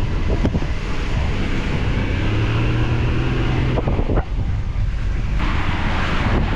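Safari vehicle's engine running steadily, with wind noise on the microphone and a few light knocks.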